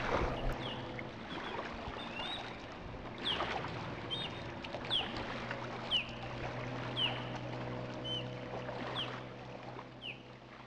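A bird repeating a short, falling call about once a second, over a steady low hum and a soft background hiss.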